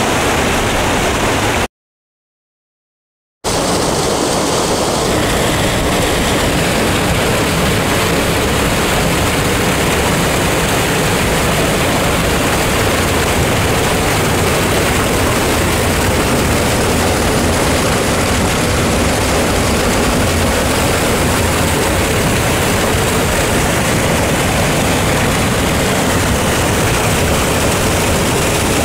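Loud, steady rush of a creek cascade and waterfall pouring over rock, with a brief gap of silence about two seconds in.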